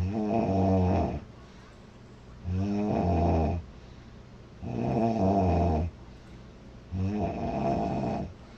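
A woman snoring loudly: four snores, each about a second long, coming about every two seconds.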